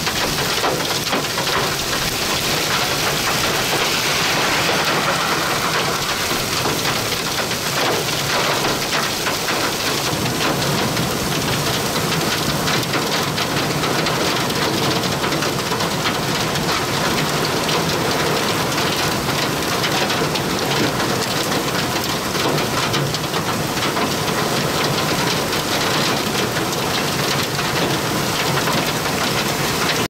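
Heavy wind-driven rain and strong wind in a severe thunderstorm, winds estimated at around 70 mph: a loud, steady rush that swells briefly about four seconds in.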